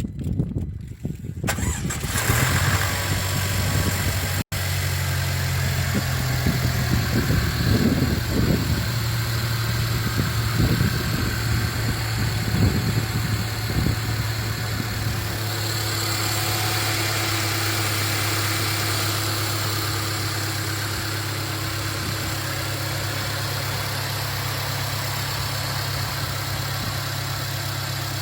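Mercedes-Benz W205 C-Class engine starting cold-from-rest about two seconds in, then idling unevenly with irregular knocks for roughly ten seconds before settling into a steady idle. This is the start-up abnormal noise the owner is recording.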